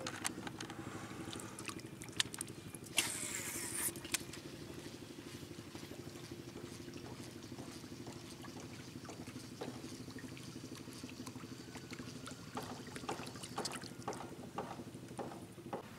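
An engine drones steadily at a low level, with a short rush of noise about three seconds in and scattered light clicks and ticks toward the end.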